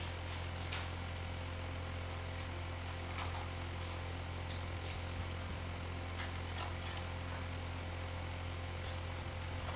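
Steady low electrical hum and hiss, with a few faint rustles and light taps scattered through as a puppet is handled on a crumpled-paper set.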